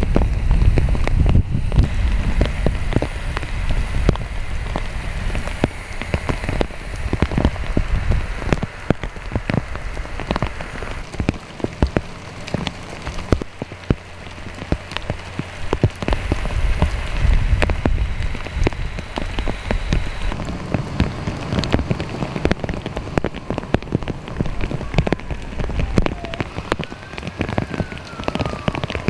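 Rain falling steadily, with many separate drops hitting nearby surfaces over a low rumble. A few short falling tones come in near the end.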